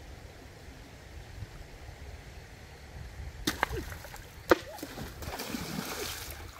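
Low steady rush of a shallow river, then water splashing hard as a person lunges and dives into it: two sharp splashes about halfway through, followed by a longer burst of churning splash near the end, with short cries from the person.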